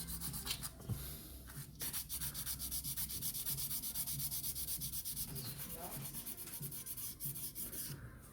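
Sandpaper rubbing back and forth on a model car in quick, even strokes, about four or five a second.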